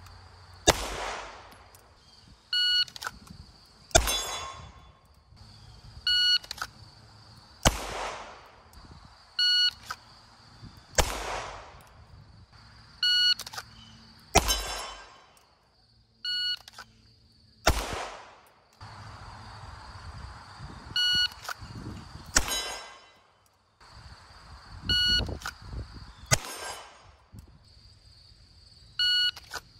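Shot timer beeping, followed about a second later each time by a single shot from a 9mm CZ Shadow 2 pistol drawn from the holster; the beep-then-shot cycle repeats every three to four seconds, about eight times.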